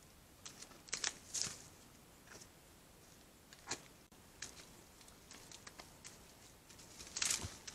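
Scattered snaps and rustles of hooves moving over twigs and leaf litter as red deer hinds and wild boar shift about, with a denser, louder patch of rustling and crackling near the end.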